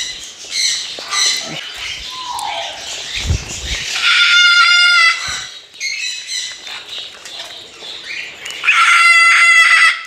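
Two loud, harsh parrot screeches, each about a second long, one about four seconds in and one near the end, from a parrot calling to be fed. Lighter chattering from other aviary parrots runs between them.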